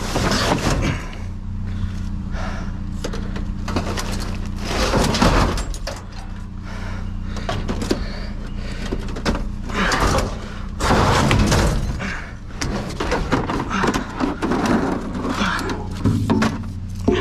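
Junk being rummaged and shifted in a dumpster: irregular knocks, clunks and rustling as items such as computer cases are moved, with heavier clattering about five seconds in and again around ten to eleven seconds in. A steady low hum runs underneath.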